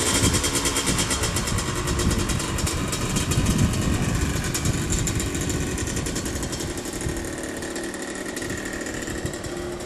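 Kick-start motorbike engine running under throttle, getting gradually quieter over the second half as it moves away.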